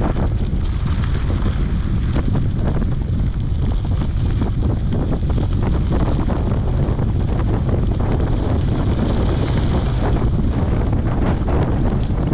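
Wind buffeting a GoPro's microphone during a mountain bike ride: a steady low rumble with scattered small clicks and rattles.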